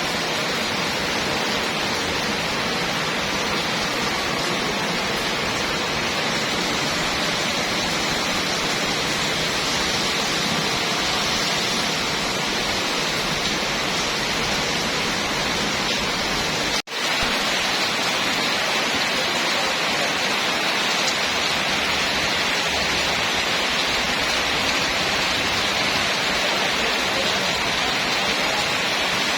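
Heavy rain pouring steadily, an even hiss of downpour, with a momentary break a little past the halfway point.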